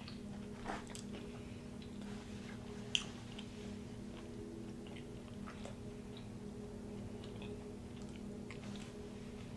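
A person chewing food close to the microphone, with soft crackles and small mouth clicks, and one sharper click about three seconds in. A faint steady hum runs underneath.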